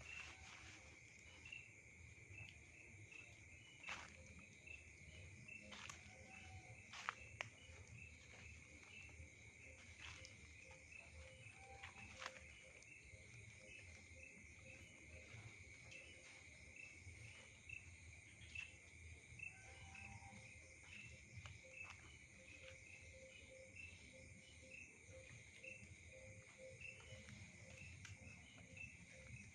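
Faint night insect chorus: a steady high-pitched trill with a regular chirp repeating over it, and a few short faint calls now and then. Several sharp clicks between about four and seven seconds in are the loudest sounds.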